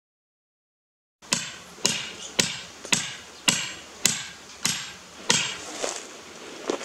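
Hammer blows driving a steel star picket into the ground: about eight sharp, evenly spaced strikes, roughly two a second, starting about a second in, with the last couple lighter.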